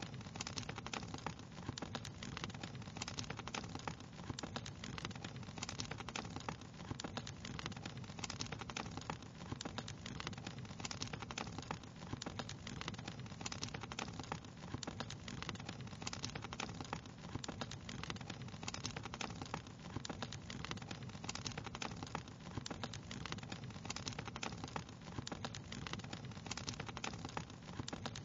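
Wood fire crackling steadily: dense, irregular small pops and snaps over a soft low rush of burning.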